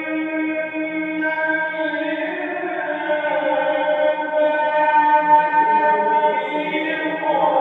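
A male reciter chanting the Quran in the melodic mujawwad style, holding long notes that shift slowly in pitch, with a change of note about two seconds in and again near the end.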